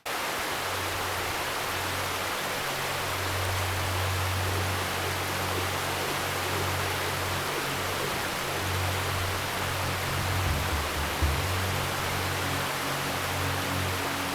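Background music with low sustained notes that change every few seconds, over the steady rushing of a mountain river.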